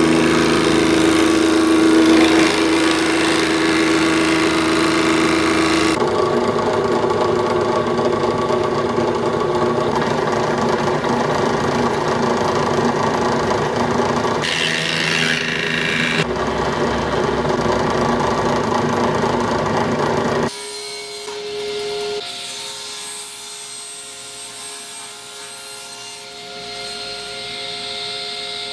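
A power tool running and cutting wood, its sound shifting a few times, until it stops abruptly about twenty seconds in. After that a much quieter sound with a faint steady hum.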